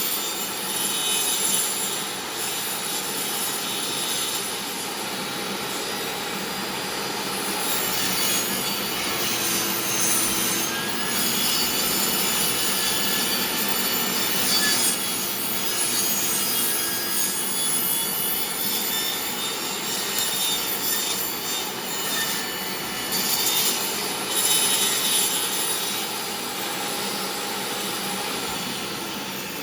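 DeWalt table saw running, its blade scraping a circular groove into a wooden board as the board is turned across it. The sound is a continuous loud saw noise whose loudness swells and eases as the cut bites.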